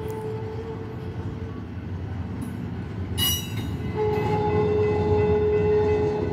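Long BNSF double-stack intermodal freight train rolling slowly past: a steady low rumble of wheels on rail, a brief metallic screech about three seconds in, and a steady tone that comes in strongly about four seconds in and holds.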